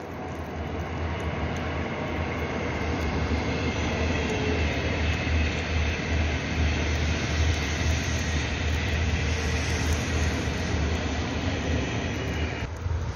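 High-speed train passing on an elevated line, a rushing rumble that builds over the first few seconds and eases off near the end.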